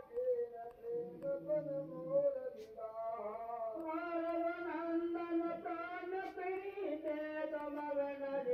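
A song playing in the background: a voice singing long, wavering held notes over music.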